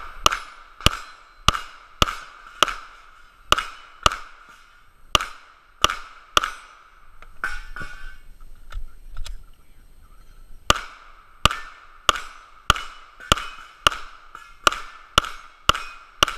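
Rapid pistol fire at steel plate targets: about ten shots roughly half a second apart, each followed by the ring of a struck steel plate. A pause of about four seconds comes midway, then another string of about ten shots and rings.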